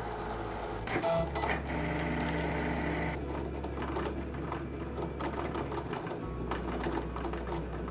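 Cricut Explore Air 2 electronic cutting machine running a cut with its deep-cut blade in a sheet of silver metal clay. Its motors make a steady hum that shifts pitch a few times, with fine rapid ticking as the carriage moves.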